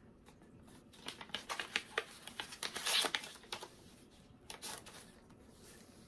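Paper rustling and crackling as a small paper envelope is handled and opened and a greeting card is slid out, with a denser burst of crinkling about three seconds in.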